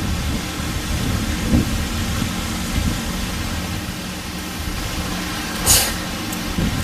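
Steady low rumble of outdoor background noise, with one brief hiss near the end.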